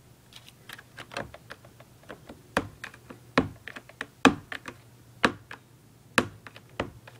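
Irregular clicks and taps on a plastic laundry basket, the louder ones about once a second with lighter clicks in between.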